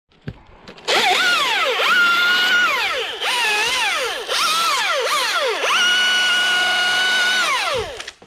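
Husqvarna T540iXP battery chainsaw revved in about five bursts, its electric whine rising and falling with the trigger. The last burst is held steady for about two seconds before it winds down.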